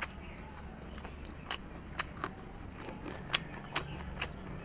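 Chewing a mouthful of pork and rice: irregular sharp, wet mouth clicks and smacks, a few a second at times, loudest a little after three seconds in.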